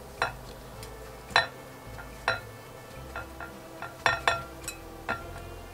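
A gloved hand coats a chicken tender in seasoned flour in a glass mixing bowl, with several sharp clinks and taps against the glass, scattered unevenly, some ringing briefly.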